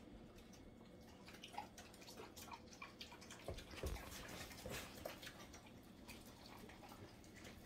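Two dogs eating soft homemade food from plastic slow-feeder bowls: faint wet smacking and chewing clicks, with two soft thumps around the middle.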